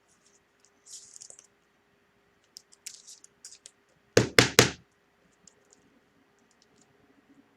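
Light handling sounds on a tabletop: a brief rustle about a second in, a few light clicks, then three quick knocks a little after four seconds.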